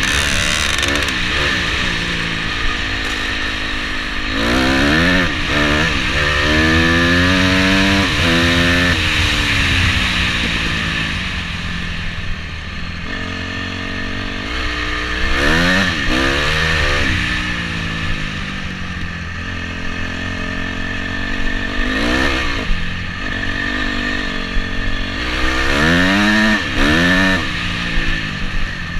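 Dirt bike engine heard from the rider's helmet, revving up and down as it accelerates along a gravel track. The pitch climbs in several quick runs, each dropping back before climbing again, then falls as the throttle eases.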